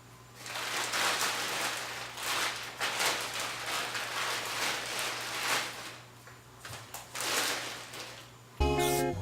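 Repeated bursts of spray hiss from cleaning a crankshaft, in uneven blasts of about half a second to a second and a half each. Background music comes in near the end.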